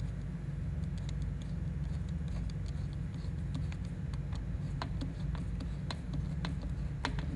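Screwdriver tightening a hose clamp on a cone air filter: a few light, irregular clicks and scrapes from the tool and clamp screw, more of them in the second half, over a steady low hum.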